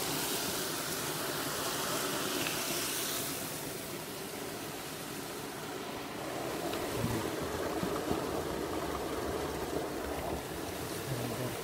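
River water rushing steadily, a continuous hiss.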